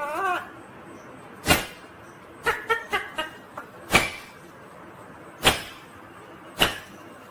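Indian ringneck parakeet calling: a short wavering call, then single sharp screeches about every one to two seconds, with a quick run of short chirps a little after the second one.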